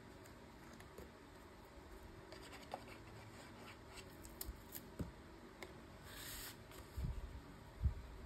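Paper and craft tools handled on a desk: scattered light taps and clicks, a short rustle about six seconds in, and a couple of soft thumps near the end.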